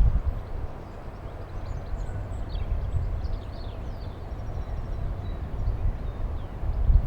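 Small birds chirping and trilling throughout, over gusty wind buffeting the microphone, with the rumble swelling near the start and again near the end.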